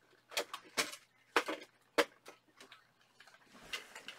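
Handling noise: about half a dozen sharp clicks and knocks of hard objects being moved about, unevenly spaced, the loudest two about a second and a half and two seconds in.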